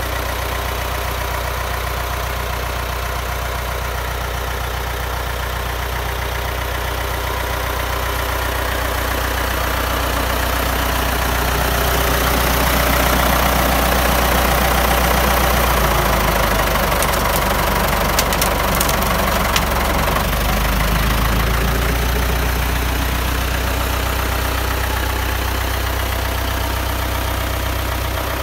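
Ford 5600 tractor's diesel engine running steadily, swelling louder through the middle and easing back near the end.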